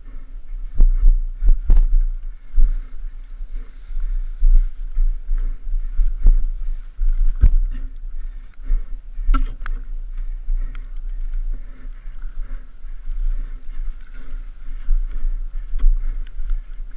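Mountain bike riding a rough enduro trail, heard through a helmet-mounted camera: wind rumbling on the microphone, with frequent sharp knocks and rattles from the bike over rough ground.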